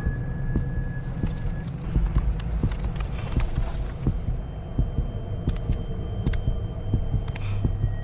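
Film sound design: a low droning hum under a rapid, regular heartbeat-like throbbing pulse, with faint scattered clicks and a thin high tone that fades out in the first couple of seconds.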